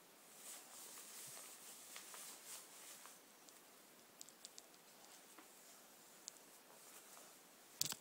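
Near silence: faint room tone with a few small, scattered clicks and a slightly louder click near the end.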